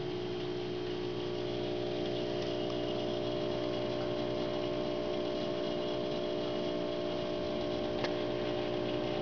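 Aquarium pump humming steadily: a constant hum of several held tones over a faint hiss.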